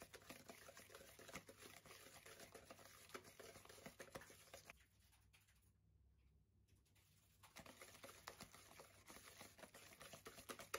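Wire whisk beating butter in a mixing bowl: fast, quiet scraping and clicking of the wires against the bowl. It stops for about three seconds midway, then starts again.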